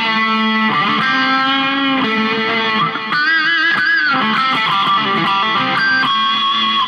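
Telecaster-style electric guitar with P90 pickups, played through an amplifier: a loud passage of sustained notes and chords with a wavering vibrato bend about three seconds in, stopping just at the end.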